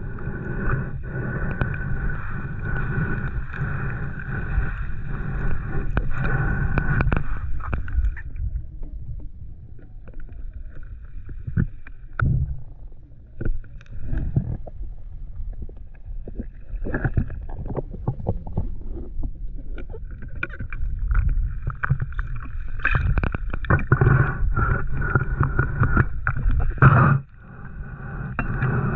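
Muffled underwater sound picked up by a camera carried by a swimming diver: a low rumble of moving water with frequent knocks and bumps on the housing. A steady high whine fades out about eight seconds in and comes back about twenty seconds in.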